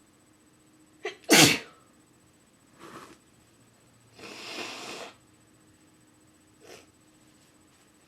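A woman's single forceful, induced sneeze about a second in, starting with a brief catch and then exploding loudly. Two softer breathy sounds follow, a short one about two seconds later and a longer one after that.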